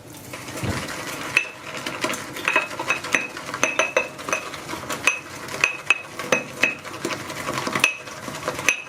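Synthetic shaving brush being swirled through shave soap in a lathering bowl, a soft wet swishing broken by frequent irregular clinks of the brush against the bowl, some ringing briefly. The lather is at an early stage, still short of water.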